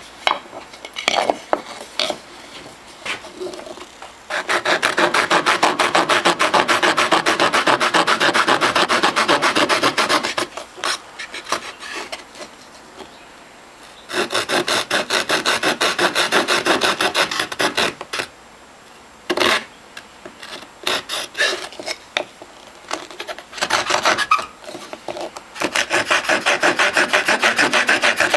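Leatherman Charge TTI multi-tool's folding saw blade cutting, in fast, even back-and-forth strokes. A few separate strokes start the cut, then comes steady sawing in runs of several seconds, broken by short pauses.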